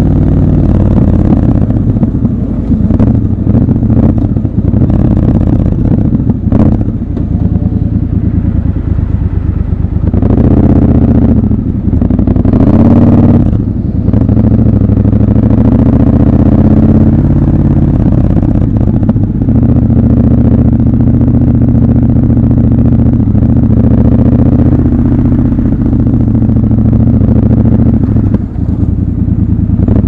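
Triumph Scrambler 1200 XC's 1200 cc parallel-twin engine running while the bike rides at low speed, the throttle opening and closing. Revs rise and fall a few times about a third of the way in, then settle to a steady run, with a few short knocks along the way.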